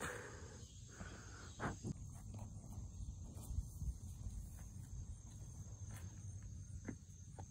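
Outdoor summer ambience: a steady high-pitched insect drone, over a low rumble on the phone's microphone, with a few faint knocks about two seconds in and again near the end.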